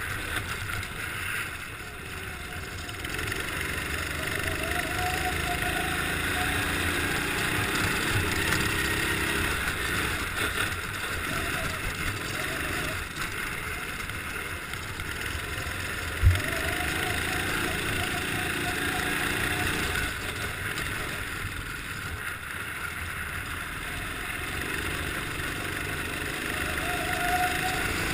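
Kart engine heard from on board, its pitch repeatedly rising and falling as it accelerates and eases off through the corners on ice. A single short thump about sixteen seconds in.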